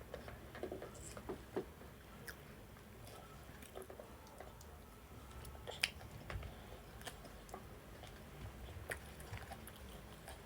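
A person chewing and biting food close to the microphone: scattered soft clicks and mouth noises, with a sharper click about six seconds in.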